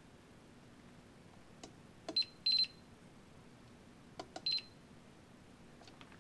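Digital multimeter beeping in short high-pitched beeps, three of them, with light clicks of the test probes touching the converter's terminals, during diode and capacitor checks.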